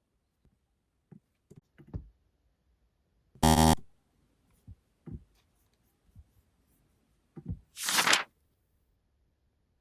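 Scattered light knocks and taps of small objects being handled, with a short, loud pitched tone about three and a half seconds in and a brief hiss about eight seconds in.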